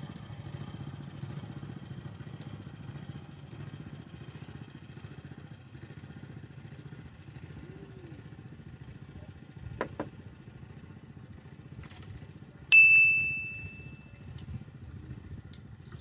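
A single loud metallic ding about thirteen seconds in, ringing clearly and fading over about a second and a half, over a steady low rumble, with a short knock a few seconds before it.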